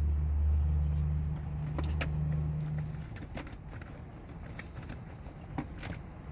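A car engine idling with a steady low hum that dies away about three seconds in, leaving low background noise with a few faint clicks and taps.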